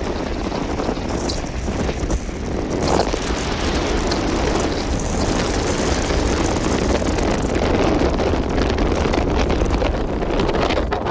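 Strong sea wind blowing hard across a ship, buffeting the microphone with a dense, steady rushing noise that swells in gusts.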